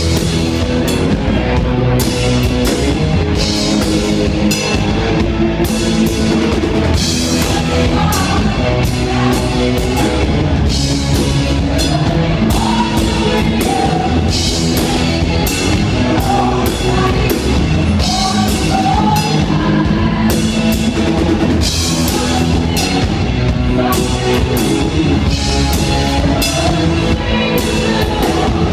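Live rock band playing loud: a woman sings lead over electric guitar and a drum kit, her voice coming in clearly about eight seconds in.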